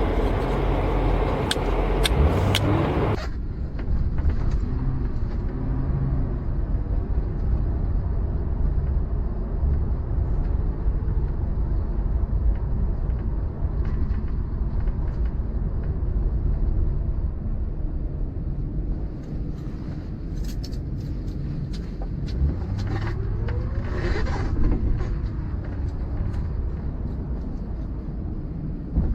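Car being driven: a steady low rumble of engine and road noise. A louder hiss over the first few seconds cuts off suddenly.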